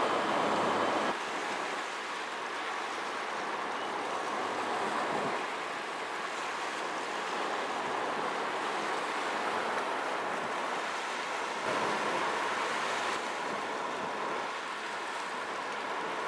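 Steady rushing outdoor ambience of wind and river water at the shoreline. Its level shifts a little at cuts about a second, five seconds and twelve seconds in.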